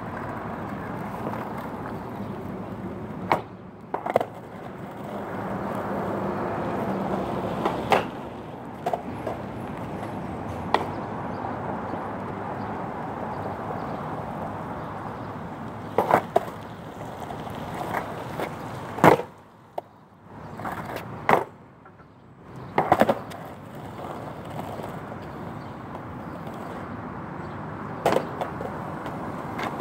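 Skateboard wheels rolling on rough asphalt with a steady rumble, broken by sharp clacks of the board and wheels striking the pavement, about eight times, the loudest about two-thirds of the way through.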